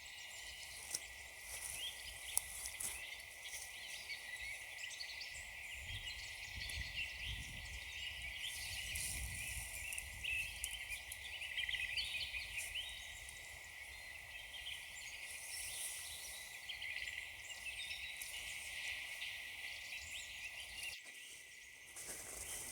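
Small woodland songbirds chirping and singing in a busy chorus, with a low rumble about six to ten seconds in.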